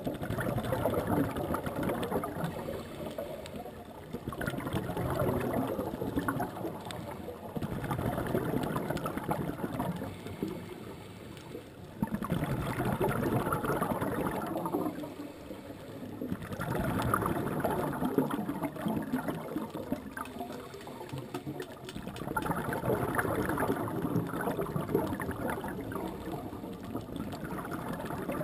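Underwater scuba breathing: bubbles exhaled through a diver's regulator gurgle in bursts of a few seconds, with quieter gaps between breaths, repeating about every four to six seconds.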